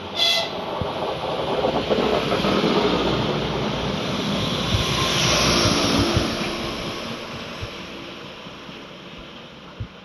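PESA SA139 diesel railcar giving a short horn blast, then running past close by: engine and wheel noise rise to a peak in the middle with wheels clacking over the rail joints, and fade as it pulls away.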